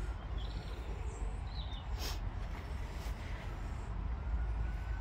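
Outdoor night ambience: a steady low rumble with two faint short bird calls in the first two seconds and a single sharp click about two seconds in.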